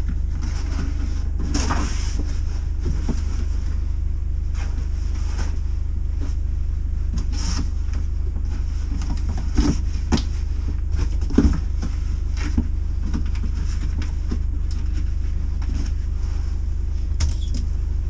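Cardboard boxes being handled and packed: rustling and a scatter of light knocks, the loudest a little past the middle. Under it runs a steady low hum.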